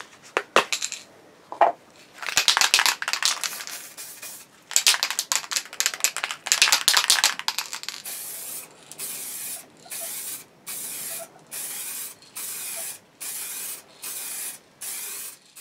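Aerosol spray paint can: a few clicks and two stretches of rattling, then the can hissing in about ten short, evenly spaced bursts of half a second each as it sprays paint.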